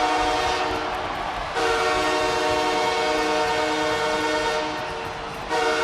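NHL arena goal horn blowing a deep, steady multi-note chord in long blasts. One blast fades out, a new one starts about a second and a half in and runs about four seconds, and another begins near the end.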